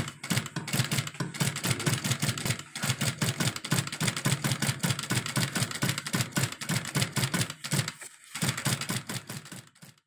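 Industrial sewing machine running, its needle stitching through layered nylon webbing with a rapid, steady clatter. It drops out briefly about eight seconds in, starts again and stops just before the end.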